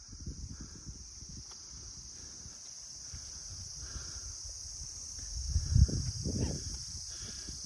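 Insects chirring in one steady, unbroken high-pitched hum over a low rumble of wind on the microphone. The rumble grows louder for a second or two near the end.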